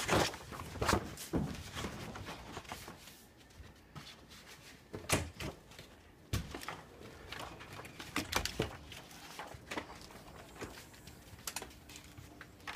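Scattered knocks and thumps from moving about with a handheld phone: footsteps, handling of the phone and a door.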